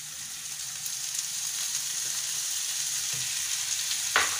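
Chopped onions and diced potatoes sizzling in hot oil in a frying pan, the sizzle growing steadily louder. Near the end there is a single sharp knock, the wooden spatula striking the pan.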